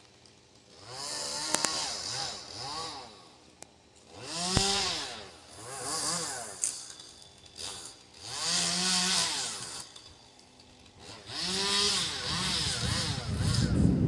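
Small chainsaw high up in a Douglas fir, revved in about six short bursts that each rise and fall in pitch, with pauses between, as limbs are cut. Near the end a low rushing noise of wind on the microphone builds up under the saw.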